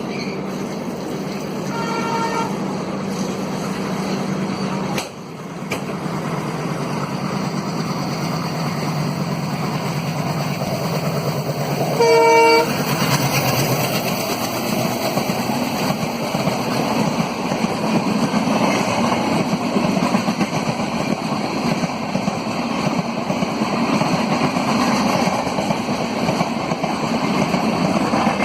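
WDM-3D diesel locomotive with its ALCO 251 V16 engine, running under acceleration as it approaches. Its horn gives a short faint toot about two seconds in and a loud blast about twelve seconds in. After that the locomotive and its coaches rumble past.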